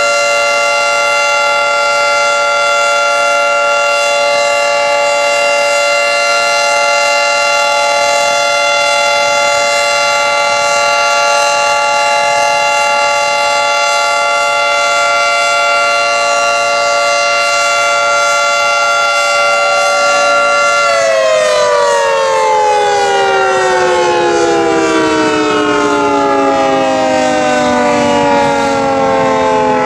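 Federal Signal 2T22 dual-tone outdoor warning siren sounding a steady, loud chord during its test. About 21 seconds in it shuts off and winds down, both tones falling in pitch together as the rotors slow.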